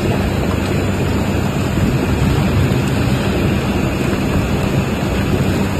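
Stainless steel food chopping and mixing machine running steadily, a continuous loud mechanical rush over a low motor hum.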